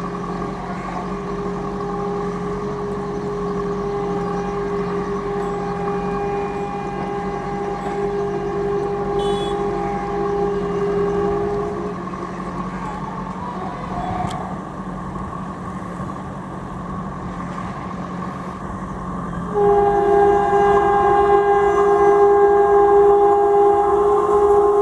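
WAP-4 electric locomotive's horn sounding long, steady blasts as the express approaches at speed over the running noise of the train. One blast lasts about twelve seconds. After a quieter gap, a louder blast starts about twenty seconds in and drops in pitch at the very end as the locomotive draws level.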